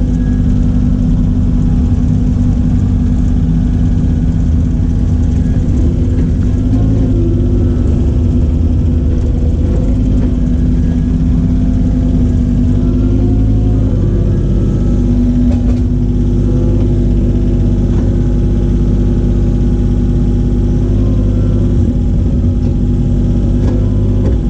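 An engine running steadily and loudly throughout, its pitch shifting slightly a few times as the load changes.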